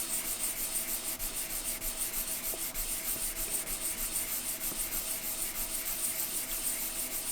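Fine 600-grit wet-and-dry sandpaper rubbed in quick back-and-forth strokes over a tarnished speaker badge, polishing it toward a mirror finish.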